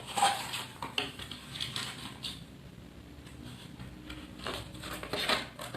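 Clicks, taps and scrapes of food containers and utensils being handled, in scattered bursts, busiest at the start and again near the end.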